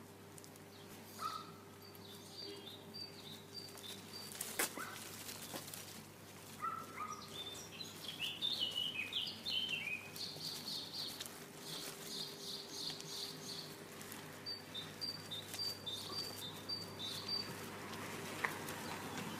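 Small birds chirping outdoors in repeated series of short, high chirps, with a quick run of falling notes about eight to ten seconds in. There is a single sharp click a little over four seconds in.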